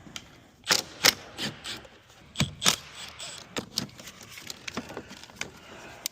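A run of sharp, irregular clicks and knocks from hand tools and parts being handled during a car repair. The two loudest come close together about a second in.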